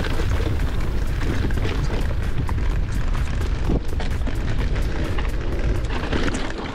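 Mountain bike descending a loose dirt singletrack, heard from a camera on the rider: a heavy low wind rumble on the microphone, tyres rolling over dirt and the bike rattling and clicking over bumps. It fades out near the end.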